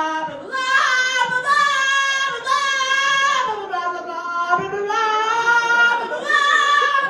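A young woman singing loudly in made-up 'Martian' gibberish: one voice holding a string of long notes that slide up and down in pitch, with short breaks between phrases.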